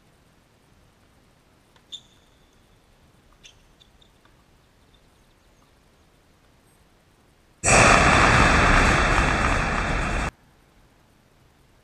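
Tennis racket striking the ball: a sharp pop with a short ringing tone about two seconds in, then a fainter hit about a second and a half later. Later comes a loud, even rushing hiss of about two and a half seconds that starts and cuts off abruptly.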